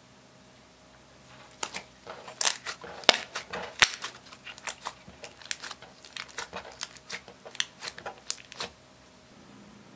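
Pink slime, clear slime with eyeshadow mixed in, squeezed and kneaded by hand, giving a rapid, uneven run of sharp wet pops and clicks that starts about a second and a half in and stops near the end.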